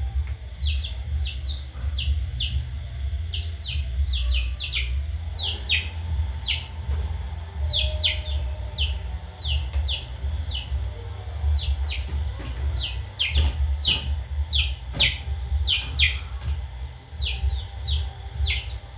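Baby bird peeping: high, falling peeps repeated about two or three times a second, over a steady low rumble.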